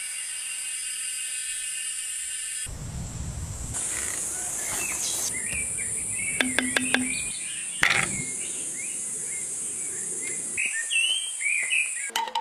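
Birds chirping over a steady high hiss, with a brief low rumble about three seconds in and a few sharp clicks past the middle.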